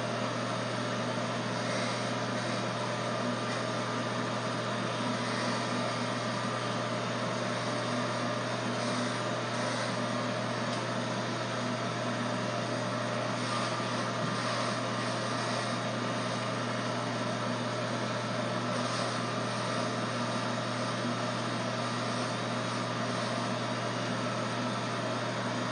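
Electric hair clippers running with a steady buzz, cutting hair.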